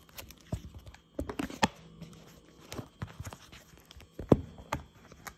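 Irregular knocks, clicks and handling noise as a phone is moved and set down on a tabletop, with the loudest knock about four seconds in.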